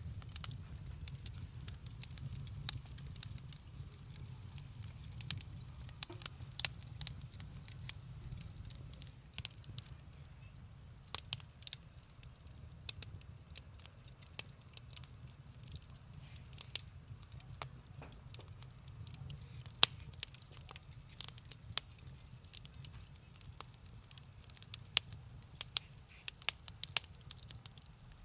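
Fireplace fire crackling, with irregular sharp pops and snaps over a low steady rumble.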